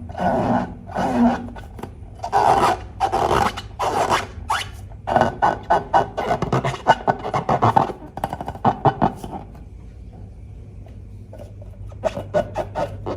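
Slime being squeezed and worked by hand: irregular squishing, rubbing and crackling strokes, with a run of quick small crackles midway and a short lull near the end.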